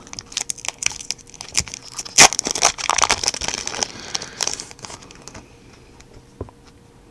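Foil Yu-Gi-Oh! booster pack wrapper crinkling and crackling as it is handled and torn open, with a sharp crackle about two seconds in; the crinkling dies away after about five seconds.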